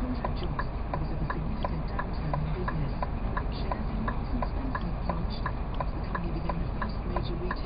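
Scania R420 turn-signal indicator ticking evenly, about two to three ticks a second, over the low steady hum of the idling engine.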